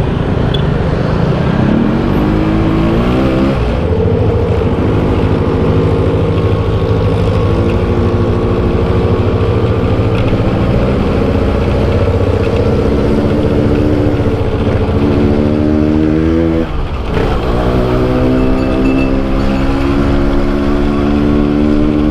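Yamaha RX-King 135 cc single-cylinder two-stroke running under way, pulling up through its revs in the first few seconds, then holding a fairly steady pitch. Near the end it drops sharply, as at a gear change, and climbs again.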